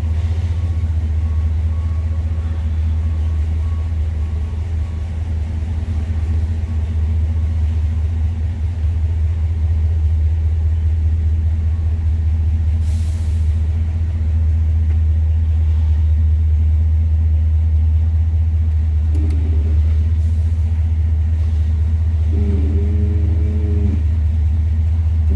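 1957 Ford Thunderbird's V8 running at low speed with a steady low rumble as the car is eased slowly through a tight space, the level creeping up slightly partway through.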